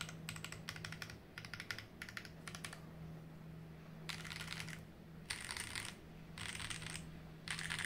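KBDfans D65 65% mechanical keyboard being typed on: quick runs of key clicks for the first few seconds, then four short, dense bursts of rapid keystrokes about a second apart. A faint steady hum lies underneath.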